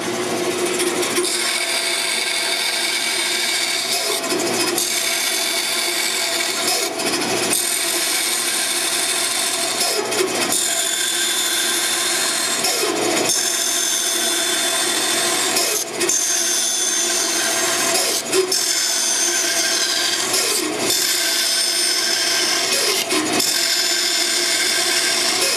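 Bandsaw running and cutting into a 2x4, the blade fed in and backed out again and again as relief cuts are made for tight curves, so the cutting sound changes every few seconds over the machine's steady running.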